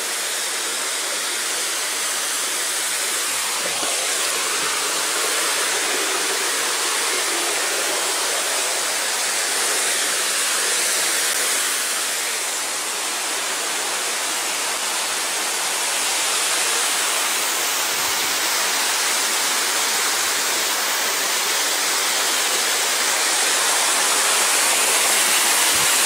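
Waterfall cascading over rock ledges: a steady rush of water that grows a little louder near the end.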